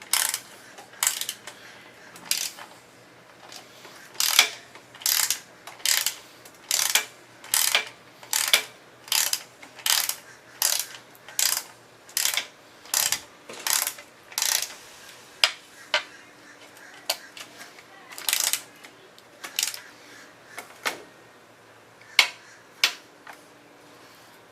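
Hand socket ratchet clicking in short bursts, about one back-stroke a second, as a nut is worked loose; the strokes become fewer and lighter in the last third.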